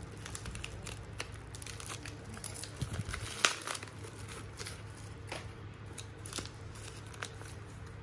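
Foil and paper wrapping crinkling and rustling as it is cut with small scissors and unfolded by hand to uncover a Zippo lighter, with one sharper click about three and a half seconds in.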